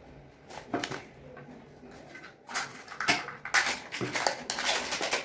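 Thin plastic cup being squeezed and flexed to free a set plaster (calcium sulfate) block, giving scattered clicks and crinkling crackles that grow dense and loud about halfway in.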